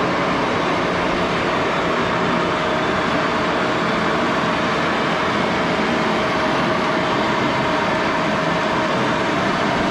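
1941 Axelson 14x30 engine lathe running, its geared headstock turning a long steel bar: a steady mechanical whir with a constant whine.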